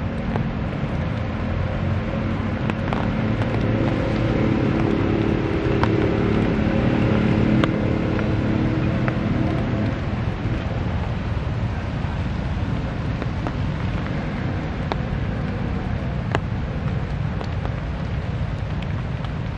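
Steady low rumble of a motor vehicle's engine in the background, its hum swelling over the first half and fading away around the middle, with a few faint clicks scattered through.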